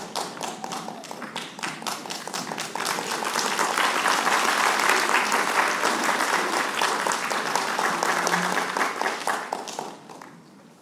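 Audience applauding, swelling about three seconds in and dying away near the end.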